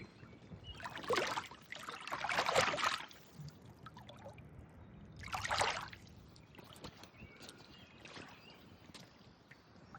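Water splashing in three short bursts, about a second in, again from two to three seconds, and once more just past five seconds, over a faint steady background.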